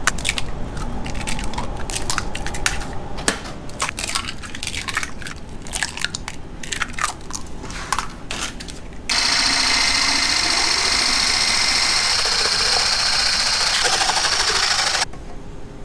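Eggs cracked one after another into a metal mesh strainer: a quick, irregular run of sharp shell cracks and clicks. About nine seconds in, a steady, louder hiss starts as a wire whisk beats the yolks against the metal mesh, and it stops abruptly near the end.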